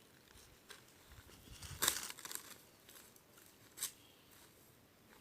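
Rustling and crackling in dry forest undergrowth, a few scattered snaps with the loudest about two seconds in.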